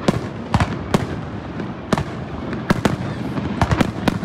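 Fireworks display shells bursting overhead: about nine sharp bangs in irregular succession, some coming in close pairs, over a steady background hiss.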